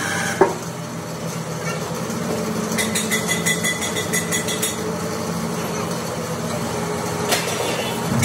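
Hydraulic press running with a steady low hum from its pump while the die is closed. There is a sharp knock about half a second in and a quick run of light metallic clinks around the middle.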